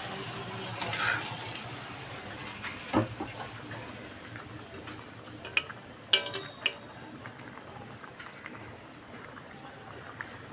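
Potato and eggplant curry gravy simmering in a metal kadhai, with a steady bubbling hiss. A metal spatula stirs and clacks against the pan a few times in the first seven seconds.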